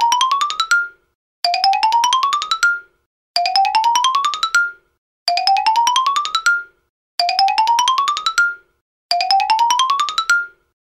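A looping musical sound effect: a quick run of short notes climbing steadily in pitch, lasting about a second and a quarter, cut off and then restarted about every two seconds, six times over.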